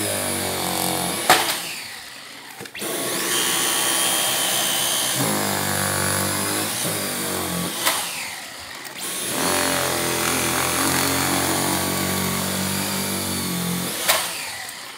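Dyson V11 Animal cordless stick vacuum running with its motorised brush head, picking dog hair off a fabric dog bed. The steady motor sound dips twice, about two and eight seconds in, before coming back up, and there are sharp knocks about one, eight and fourteen seconds in.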